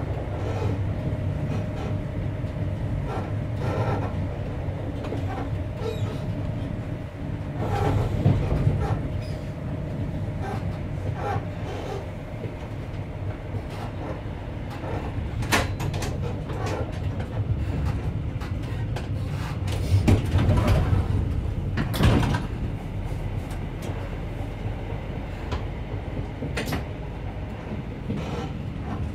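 Passenger train running, heard from inside the carriage: a steady low rumble of wheels on rails, with sharp knocks and clicks from the track, the loudest bunched about half and two-thirds of the way through.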